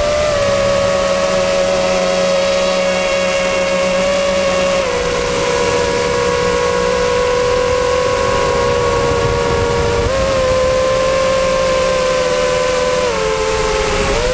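FPV quadcopter's electric motors and propellers whining loudly, heard from a GoPro mounted on the drone itself. The pitch steps down about five seconds in, jumps up again about ten seconds in, and drops once more near the end as the throttle changes.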